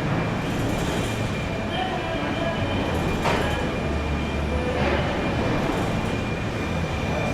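Car-factory production-line machinery running: a steady mechanical rumble with a faint high whine and a couple of knocks, about three and five seconds in.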